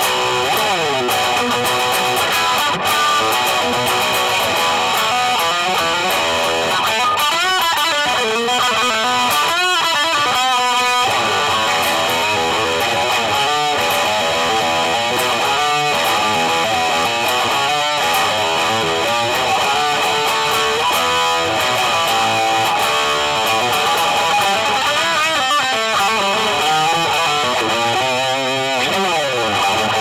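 Gibson 2019 Les Paul Standard electric guitar with Burstbucker Pro humbuckers, played through a Blackstar HT Soloist 60 tube amp: a continuous stretch of picked notes and lines, with bent, wavering notes about a third of the way in and again near the end.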